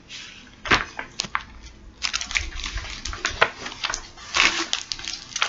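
Crinkling and crackling of a plastic-wrapped candy being unwrapped by hand: a few sharp crackles under a second in, thickening into a steady run of crinkles from about two seconds in.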